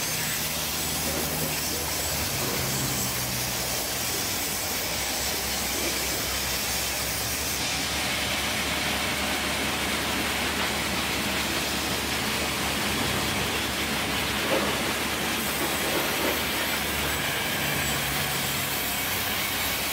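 Vertical band saw running and ripping wooden planks: a steady hiss of the blade through the wood over the low hum of the motor, the hiss growing brighter about a third of the way in as a new cut goes through.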